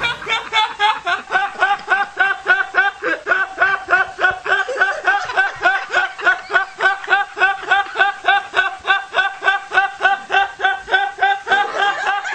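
A young man's high-pitched laughter heard through a Skype video call: a long, unbroken run of quick giggles, about four or five a second.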